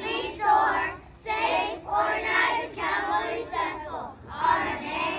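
A group of young children singing together in unison, in a run of short phrases with brief breaks between them.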